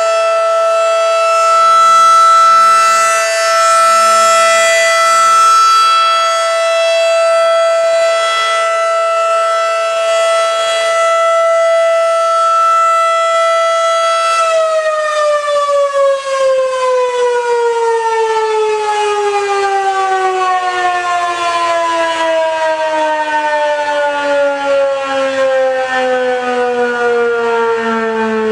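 Federal Signal mechanical outdoor warning siren sounding a steady chord-like tone, the steady Alert signal, that swells and fades every couple of seconds as the rotating head sweeps round. About halfway through the power cuts and the siren winds down, its pitch falling slowly and steadily.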